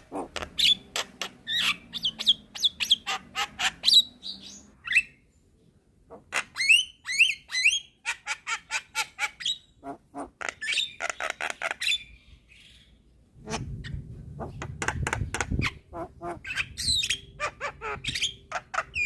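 Javan myna (jalak kebo) chattering: quick runs of sharp clicks mixed with squawks and rising chirps, broken by two short pauses. A low rumble sits under the calls for a couple of seconds after the second pause.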